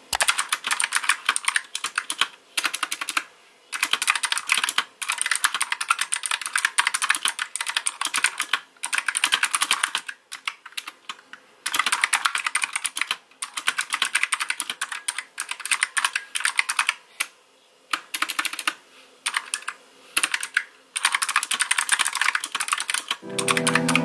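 Typing on a Razer Huntsman Mini, a white 60% mechanical keyboard with optical switches: fast runs of crisp key clicks broken by short pauses.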